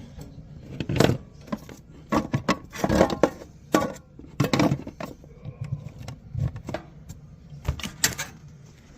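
Irregular clicks, knocks and clattering of hand tools and small metal hardware being handled and set down, with a few louder knocks about a second in and again around three seconds in.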